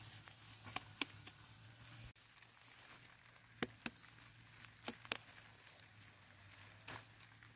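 Hands handling a watermelon and tugging at its vines on plastic mulch: a few short, sharp clicks and snaps, several in quick pairs, over a faint low hum.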